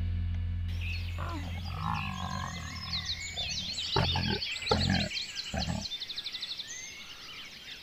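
Tiger growling a few times, short low calls about halfway through, over birds chirping in the background.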